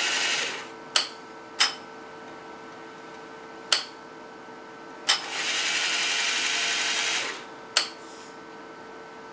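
Canon 300II microfilm scanner's motorised film transport whirring as the roll fast-winds, stopping about half a second in and running again for about two seconds in the middle. Five sharp clicks of the scroll knob come between the runs, over the machine's steady hum.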